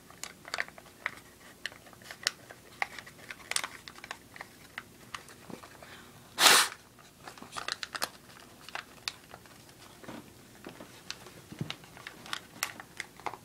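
Folded white paper crinkling and crackling in small, irregular clicks as the sides of an origami ball are pushed in by hand, with one louder, brief rustle about six and a half seconds in.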